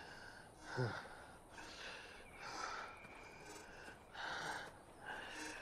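A man breathing hard from exertion, with about five heavy breaths roughly a second apart and a short falling grunt about a second in.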